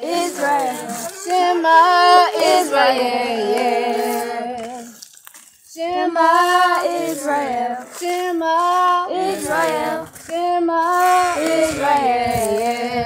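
A high-pitched voice singing a slow melody without instruments, holding long notes. It breaks off about five seconds in and starts again about a second later.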